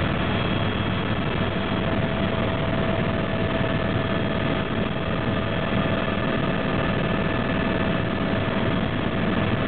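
Helicopter in flight heard from inside the cabin: a steady drone of engine and rotor, with a few thin steady whining tones over it.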